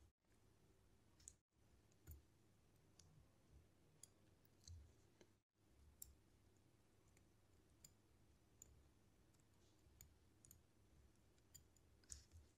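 Faint, irregular small metallic clicks of a watchmaker's screwdriver and steel tweezers touching and lifting parts on a Seiko 7S36 watch movement during disassembly.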